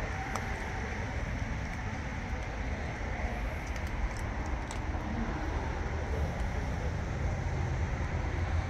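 Steady outdoor background noise: a low rumble with an even hiss over it, and a few faint clicks about halfway through.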